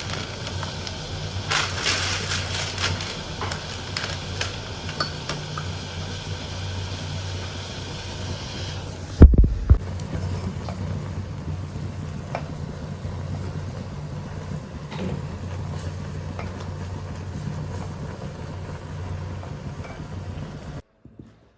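Steady low mechanical hum with scattered small clicks and kitchen clatter, and one loud low thump about nine seconds in.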